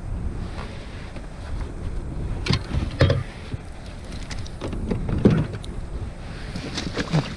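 Wind buffeting the microphone in a steady low rumble, with scattered short knocks and handling clatter, the loudest about three seconds in and again a little after five seconds.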